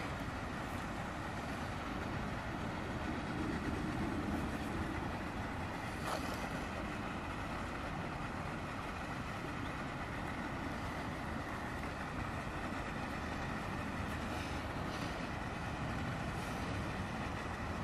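Steady outdoor background noise, an even rumbling hiss that swells slightly a few seconds in, with a few faint clicks.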